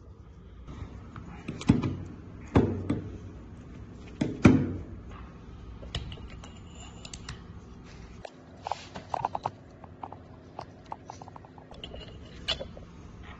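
Stainless-steel parts of a cartridge mechanical seal being handled and fitted together: three dull metal knocks in the first few seconds, then a quick run of lighter metallic clicks and clinks about two-thirds of the way through, and one more click near the end.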